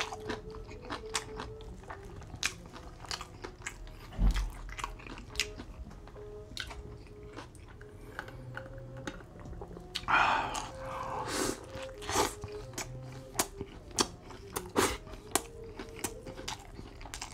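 Close-miked chewing of a mouthful of Double Whopper with cheese: many short wet clicks and smacks of soft bun, patty and lettuce. There is a low thump about four seconds in, and a drawn sip through a metal straw about ten seconds in.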